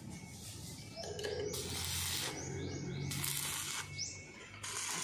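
Stick welding arc crackling and hissing in about three short bursts as a rod is run on a steel roof-truss joint, over a low steady hum.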